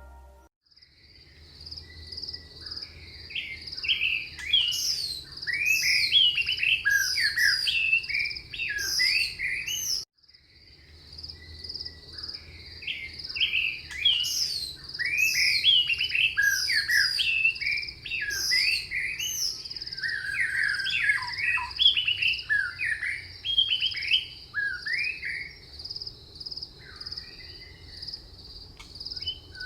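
Tropical jungle ambience: many birds chirping and calling over a steady, high, pulsing insect drone. The whole sound cuts out for a moment about ten seconds in and then starts again.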